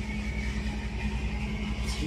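Steady low mechanical hum with a faint constant high whine above it, unchanged throughout.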